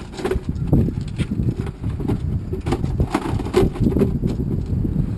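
Irregular knocks and clatter from a discarded refrigerator being opened and handled, over a low rumble.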